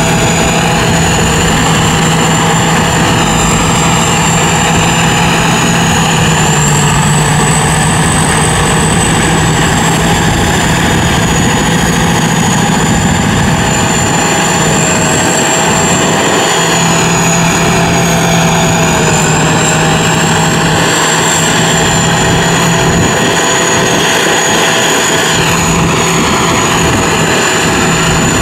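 Sit Charoen Kan Chang tracked rice combine harvester cutting and threshing rice, its engine and threshing machinery running in a loud, steady drone with a high whine whose pitch drifts slightly up and down.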